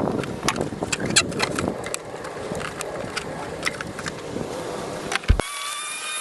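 Irregular clicks, knocks and rattles of plastic parts being handled while a pickup's tail light assembly is worked on. About five seconds in, this cuts off abruptly and several steady high tones follow.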